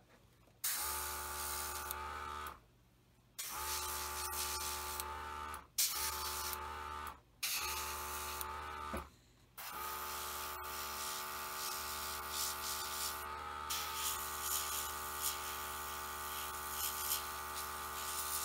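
Small airbrush compressor motor humming with a hiss of air, starting and stopping several times, then running steadily from about halfway through.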